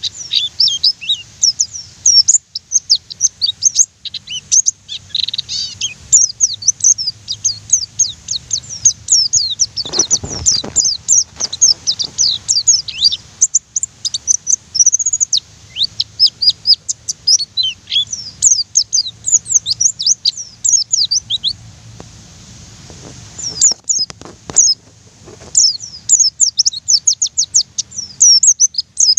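White-eye (pleci) singing a fast, rolling stream of high chirping notes, with a break of about two seconds a little past two-thirds of the way through.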